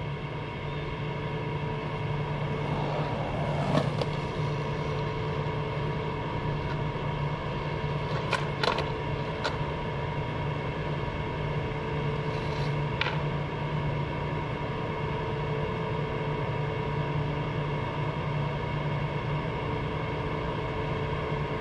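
A steady machine hum with several fixed tones. It is broken by a few sharp skateboard clacks: one about four seconds in, a quick run of them around eight to nine seconds, and one more near thirteen seconds.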